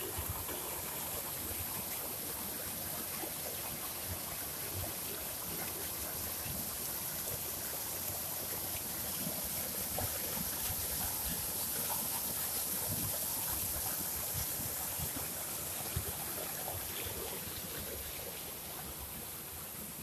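Rushing muddy floodwater, runoff from heavy rain, flowing steadily. It grows louder about halfway through, then eases toward the end.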